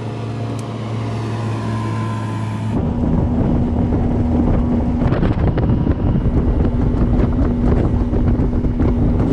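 Bass boat's outboard motor running with a steady hum. About three seconds in, the sound cuts to the boat running fast, wind rushing over the microphone over a steady engine tone.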